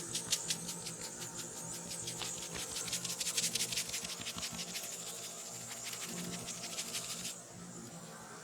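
Rapid, close-up scratchy ticking of a pin pen massage tool worked over hair and scalp, many small clicks a second, that stops suddenly about seven seconds in. Soft background music runs underneath.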